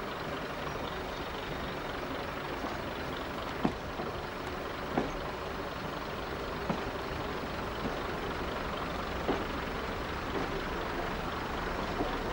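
Diesel multiple unit running slowly, heard through an open window: a steady engine drone with a handful of sharp, irregularly spaced clicks from the wheels on the track.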